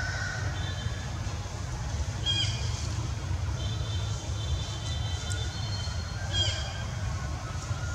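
Outdoor ambience: a steady low rumble with a short, high bird call twice, a few seconds apart, and a thin high whistle held for about three seconds in between.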